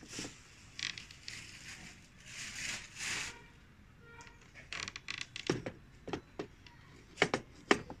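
Handling of a vintage rotary dial desk telephone: soft rustling as the handset is lifted, then a run of sharp clicks and knocks, the loudest two near the end as the handset is set back down on its cradle.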